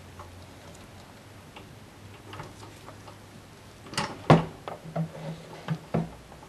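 Tools and parts being handled on a workbench: scattered light clicks and taps, then two sharp knocks about four seconds in, the loudest sounds, followed by a quick run of smaller clicks.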